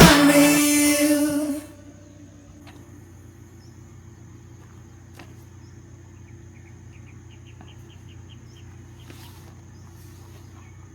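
A pop song ends in the first couple of seconds, giving way to quiet outdoor ambience: a steady high-pitched insect drone over a faint low hum, with a short run of about ten rapid chirps past the middle.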